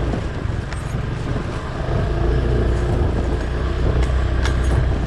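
Motor vehicle running with a steady low rumble.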